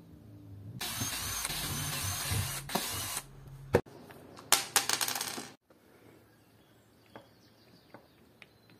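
A low-cost electric drill runs for about two and a half seconds, then a sharp knock and a quick run of metallic clicks and rattles about a second long, followed by a few faint ticks.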